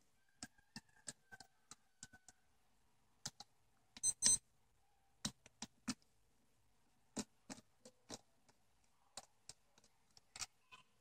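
Small precision screwdriver clicking and scraping against a plastic MP3 player casing while opening it: scattered faint, irregular ticks, with a sharper ringing double click about four seconds in.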